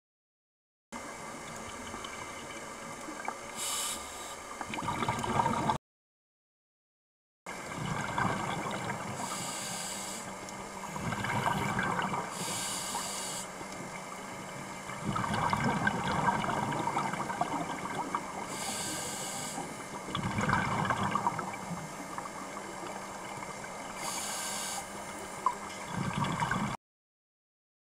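Underwater gurgling and bubbling, with a burst of bubbles every few seconds like a scuba diver breathing out through a regulator. Three brief drop-outs to dead silence break it up.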